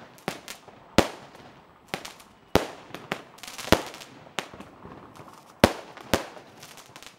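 Fireworks going off: a string of sharp single bangs at uneven intervals, about one a second, some much louder than others.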